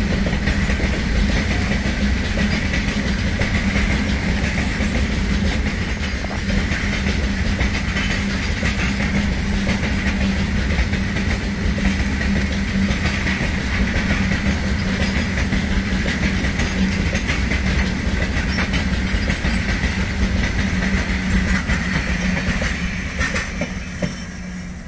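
Long freight train of covered box wagons rolling past, wheels clattering over the rail joints, with a steady hum and a higher steady ring under the rumble. The sound dies away near the end as the rear brake van passes.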